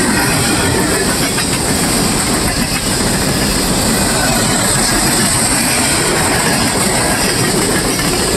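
Open-top hopper cars of a freight train rolling past close by: steady noise of steel wheels running on the rails, with a high hiss over it.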